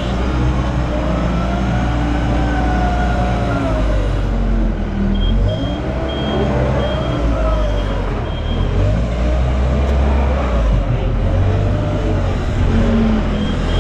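Heavy diesel engines of a dump truck and wheel loader delivering fill, running and revving with a deep rumble. A reversing alarm beeps in a steady series for a few seconds in the middle.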